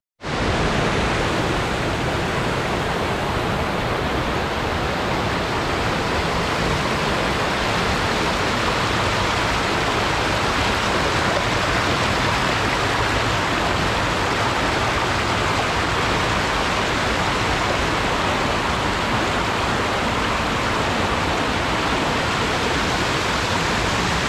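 Fast-flowing mountain stream rushing and splashing down small cascades over boulders, a steady loud rush of water close to the microphone, cutting in and out abruptly.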